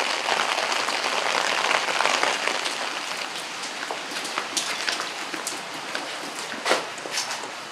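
Rain pattering on a surface: a dense, even hiss of drops with sharper individual drips, easing off gradually. Near the end there is one louder single tap.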